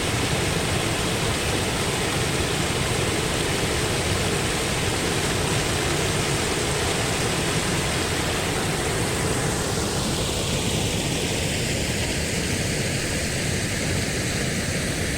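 Waterfall close up: a steady, even rush of falling water. About ten seconds in, the tone of the rush shifts without getting quieter.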